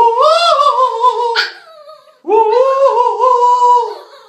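Yorkshire terrier puppy howling: two long, wavering, held calls, the second starting about two seconds in.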